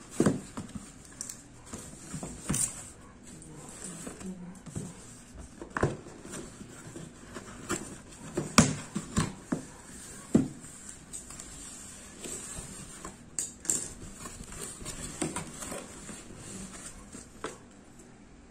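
A cardboard shipping box being handled and opened: irregular knocks, scrapes and rustles of the cardboard flaps and packing, with a cluster of louder knocks in the middle.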